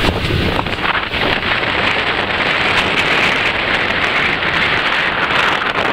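Off-road vehicle driving over a rough desert dirt track: a steady rushing of tyres on dirt and gravel mixed with wind on the microphone.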